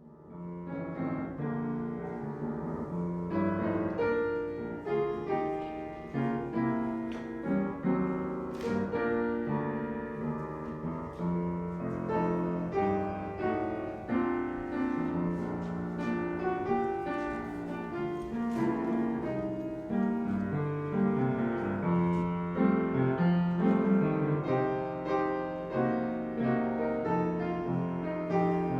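Piano music, starting out of silence right at the beginning and going on as a continuous flow of notes and chords.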